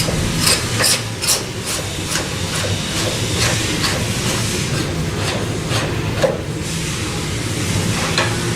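Metal parts clicking and scraping as the running tool's threaded pieces and the bench vise are tightened by hand. The clicks come two or three a second at first and thin out after about four seconds, over a steady low hum.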